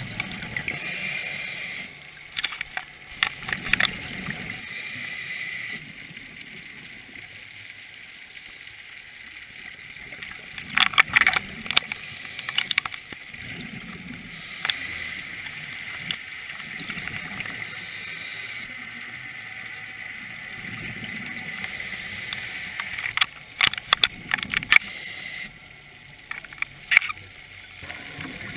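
Scuba breathing heard underwater: regulator breath noise and exhaled bubbles rising and falling in a slow cycle of a few seconds. Clusters of sharp bubbling crackles stand out about a third of the way in and again near the end.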